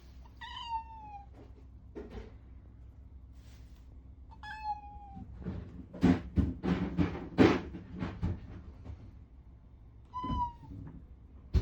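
Domestic cat meowing three times, each call falling in pitch, with a burst of loud knocks and scuffling in the middle.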